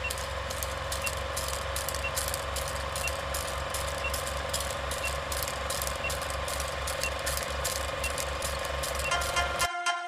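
Sound-effect intro of a rap track: rapid mechanical ticking like a ratchet over a pulsing low rumble and a steady hum, with a short high beep about once a second. Near the end the rumble cuts off and the melodic beat begins.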